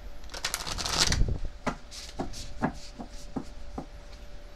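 A deck of cards being shuffled by hand: a quick rush of riffling card clicks about a second in, then a run of single clicks about two a second.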